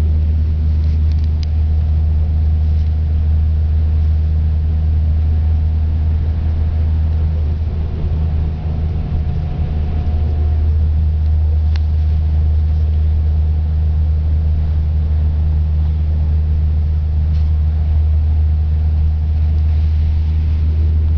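Coach bus heard from inside the passenger cabin at motorway speed: a steady low drone of engine and road noise.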